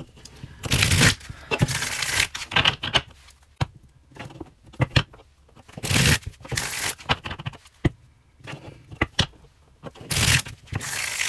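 A deck of tarot cards being riffle-shuffled by hand: several quick rippling riffles as the two halves are bent and released into each other, with taps and clicks between them as the deck is split and squared.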